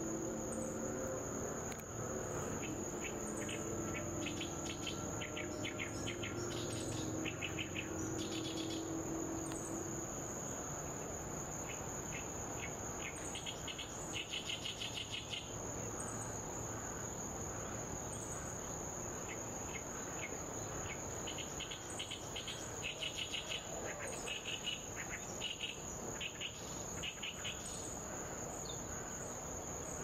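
An insect's continuous high-pitched trill holds one unbroken tone throughout, with a small songbird's short chirping phrases coming in several bursts over it.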